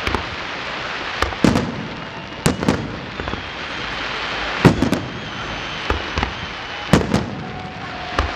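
Fireworks display: aerial shells bursting in sharp bangs at uneven spacing, some in quick pairs or clusters, over a steady crackling hiss. Faint high whistles sound in the middle, and the loudest bang comes a little past halfway.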